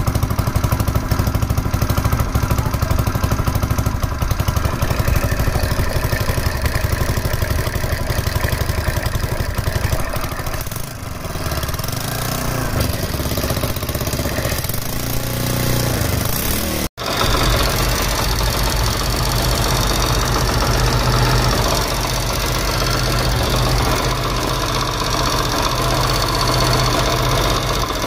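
Altered CD 70 motorcycle's single-cylinder four-stroke engine, fitted with a GN5 piston and a 27 cam, running steadily at idle. The rocker clearances have been left loose so the valves can seat, which gives a tappet 'tak tak' ticking. The sound cuts out for an instant about two-thirds of the way through and then resumes.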